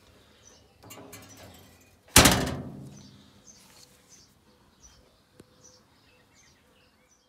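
Lid of a homemade steel-drum barrel smoker shut with a loud thunk about two seconds in, ringing briefly as it dies away. Birds chirp faintly throughout.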